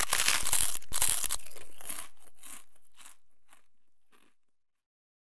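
Crunchy bite and chewing sound effect: a dense crunch for about the first second and a half, then a few separate chews about half a second apart, each fainter than the last, dying out a little past four and a half seconds.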